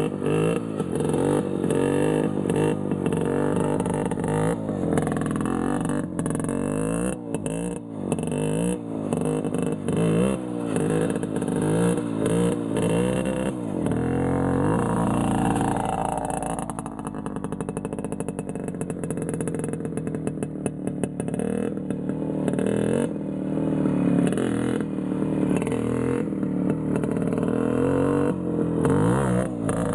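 Minsk two-stroke single-cylinder motorcycle engine being revved hard over and over, its pitch rising and falling about once a second. About halfway through comes one long rising rev, then the engine runs on more steadily with smaller surges.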